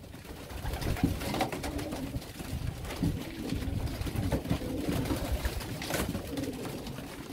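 Racing pigeons cooing in a loft: low, wavering coos repeat throughout. Scattered sharp clicks and scuffs sound among them, the loudest about six seconds in.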